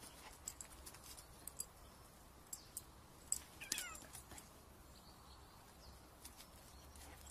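Domestic cat giving a short, faint meow about halfway through, falling in pitch, among scattered light clicks and taps.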